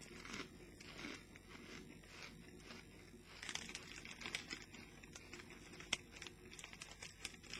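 Rustling of a small crisp packet and the crunch of Walkers potato crisps being bitten and chewed, as a scatter of faint crackles and clicks.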